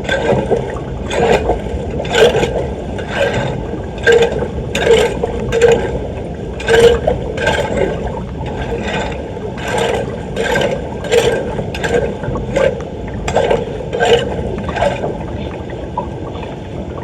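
A hand tool scraping debris from a clogged storm drain in floodwater, in sharp repeated strokes about one a second over steady running water. The strokes stop about 15 seconds in.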